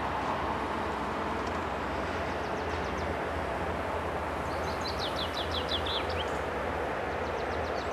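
Steady rushing outdoor background noise with a low hum under it. A small songbird sings over it, three runs of quick chirps; the loudest run, a little past the middle, falls in pitch and ends in a short flourish.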